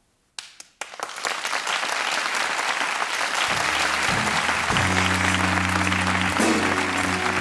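Studio audience applauding, the clapping swelling up over the first second or so. About halfway in, a band starts playing low held notes under the applause.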